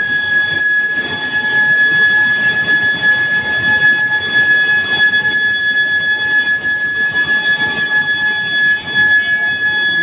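Steel billet induction heating furnace running: a steady, piercing high-pitched whine from the induction coils, over constant machinery noise.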